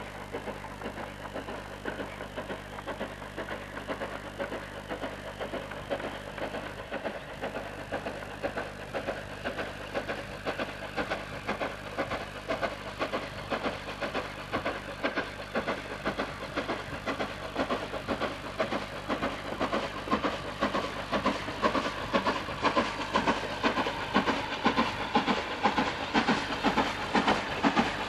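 Steam locomotive approaching, its rapid, even exhaust beats growing steadily louder.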